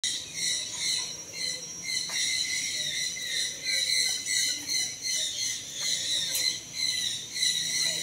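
Insects trilling in a steady high-pitched chorus that swells and fades in uneven waves.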